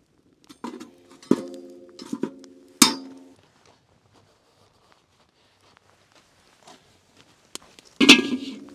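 A series of metal clanks, each one ringing briefly after the knock: about five in the first three seconds, then a quiet spell and a single louder clank near the end.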